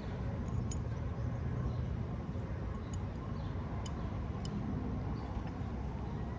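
Steady low outdoor rumble with a few faint sharp metal ticks as a roofing nail is worked in under an asphalt shingle with a shingle-repair tool.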